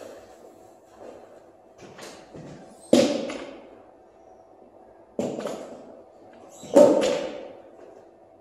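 Barbell loaded with bumper plates dropped onto a rubber gym floor three times, each bang echoing in the large hall. Lighter knocks come before the first drop, over a faint steady hum.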